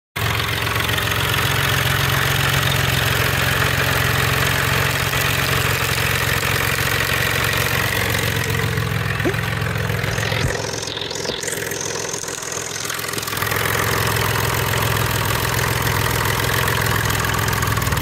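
Volkswagen-Audi 30-valve V6 idling with a knock, which the owner takes for a rod knock. Its level dips for a few seconds around the middle.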